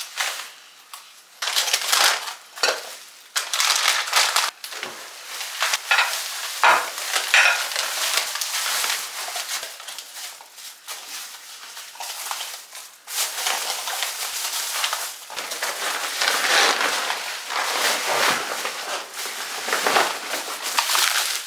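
Plastic bubble wrap and packing plastic crinkling and crackling in irregular bursts as it is handled and wrapped around dishes by hand.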